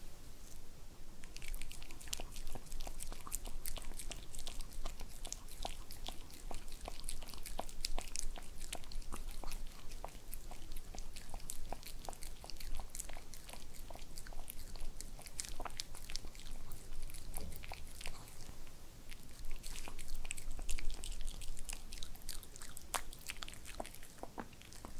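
A Pomeranian biting and chewing a soft carob-coated dog cake made mostly of sweet potato and chicken: a close, continuous run of quick, sharp mouth-and-teeth clicks that starts about a second in. It licks its lips near the end.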